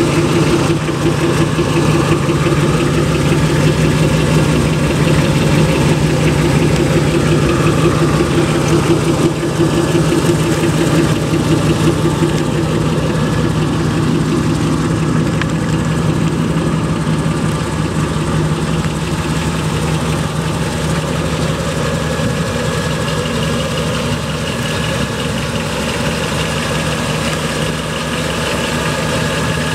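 A mild 283 small-block V8 in a 1962 Chevy Impala idling steadily, heard through its exhaust, a little fainter in the second half.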